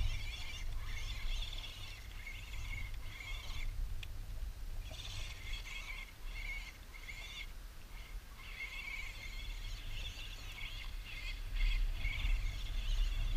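Electric motor and gears of a 1:12 scale RC off-road buggy whining in spurts as the throttle is worked, dropping out briefly about four seconds in and again around eight seconds. Wind rumbles on the microphone throughout.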